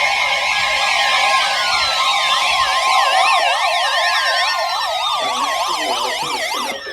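Several sirens sounding at once: fast yelping sweeps up and down overlaid with long, slowly falling wails, dropping off near the end.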